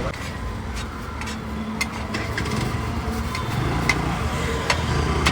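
Steady low rumble of road traffic, with scattered sharp metal clinks that come more often near the end.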